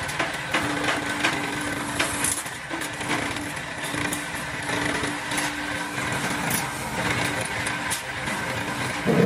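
Motor-driven sheet-metal shear running with a steady hum while its blade cuts through steel sheet, giving frequent metallic clicks and knocks as the sheet is turned through it.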